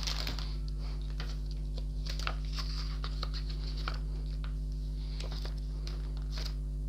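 Sealed plastic bags of LEGO pieces crinkling and rustling as they are handled, with scattered light clicks of the bricks inside; the paper pages of the instruction booklet are leafed through near the end. A steady low hum runs underneath.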